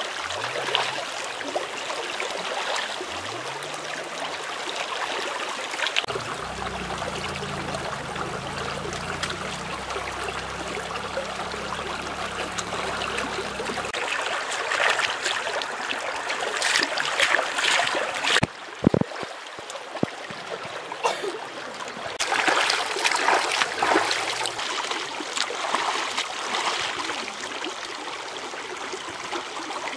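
Shallow stream running over stones, with splashing and dripping as fresh fish are rinsed by hand in the water. The splashing is loudest in two stretches past the middle.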